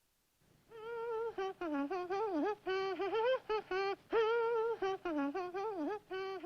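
A tune hummed in short notes with sliding, bending pitch, starting after a moment of silence.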